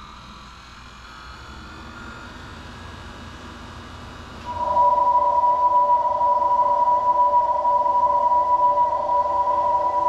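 Honda CR-V Sport hybrid's electronic pedestrian-warning sound, heard outside the car: about four and a half seconds in it starts as a loud, steady hum of a few held tones, a strange sound.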